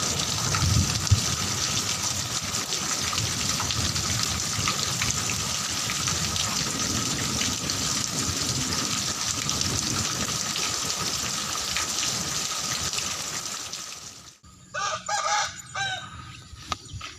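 Heavy rain falling as a steady rushing noise. It cuts off suddenly, and a rooster crows once near the end.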